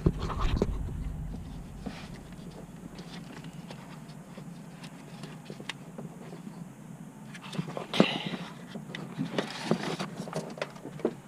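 Scattered small clicks and knocks of hand work on a car's starter: a nut being run onto the starter's cable stud and tools being handled, with a denser run of clicks near the end.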